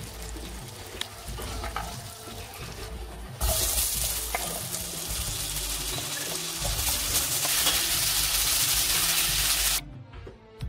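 Butter sizzling in a frying pan with a few pops, turning to a much louder, steady sizzle about three seconds in as apple slices go into the hot butter. The sizzle cuts off suddenly near the end.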